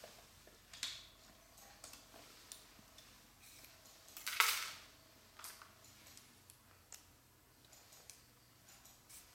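Scattered light clicks and ticks of small hard parts being handled, with a louder, half-second scrape or rustle about four and a half seconds in.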